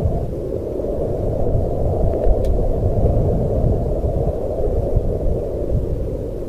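Steady low rushing noise from a dark night ambience bed, with no wolf howl in it, and a faint click about two and a half seconds in.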